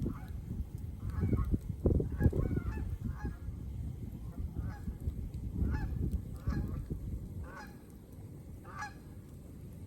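An animal calling repeatedly: short honking calls about once a second that stop near the end, over a low rumbling noise that is loudest about two seconds in.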